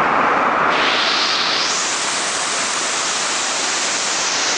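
Waterfall: the steady rush of falling water, turning brighter and hissier about a second in.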